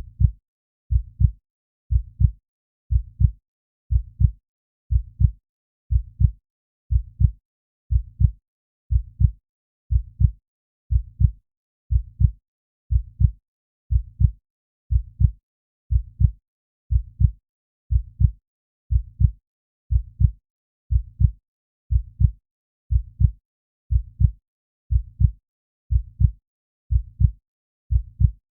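Heartbeat: low, paired 'lub-dub' thumps at a slow, steady pace of about one beat a second, evenly spaced, with quiet between beats.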